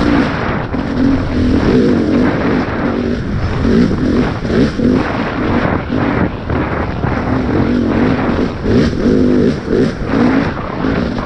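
Motocross dirt bike engine revving hard, its pitch climbing and dropping again and again as the rider works the throttle and gears, with loud rushing noise over it.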